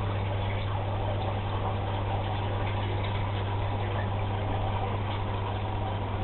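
Steady hum of an aquarium pump or filter under a constant watery hiss, with no change in level or pitch.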